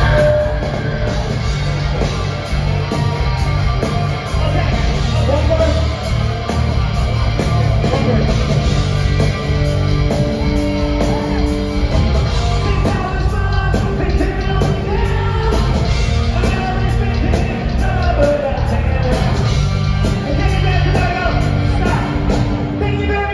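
Live heavy metal band playing loud, with a male voice singing over distorted guitars, bass and drums, heard from the audience.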